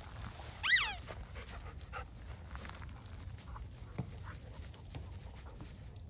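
A golden retriever gives one short, high whine that falls in pitch.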